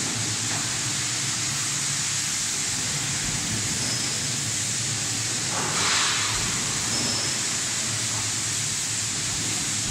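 Steady machine hiss over a low hum from an infrared conveyor dryer running, with a brief louder rush about six seconds in.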